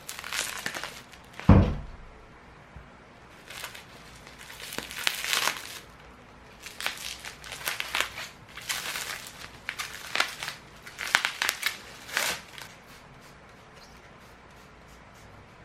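Plastic grocery packaging crinkling and rustling in irregular bursts as items are handled, with one heavy thump about a second and a half in.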